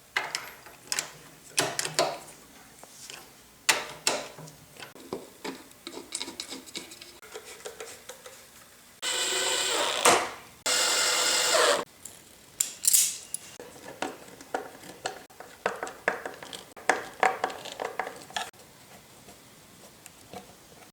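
Hands-on assembly work on machine parts: scattered clicks, taps and scrapes of tools and metal parts being handled. Two steady hissing bursts come near the middle, the first about a second and a half long, the second a little shorter.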